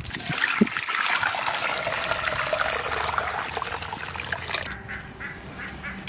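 Hot water poured into a large aluminium karahi, splashing and trickling as the pan fills. The pour tapers off about four and a half seconds in.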